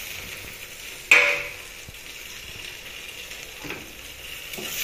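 Chopped onion and tomato frying in hot oil in an aluminium pressure cooker, a steady sizzle, stirred with a steel spoon. One sharp metallic clank rings out about a second in, with lighter knocks near the end.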